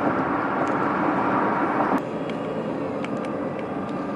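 Steady road and engine noise inside a moving car; the higher hiss drops off abruptly about two seconds in.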